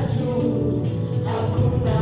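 Live gospel worship music: a band with bass and tambourine playing while singers carry the song.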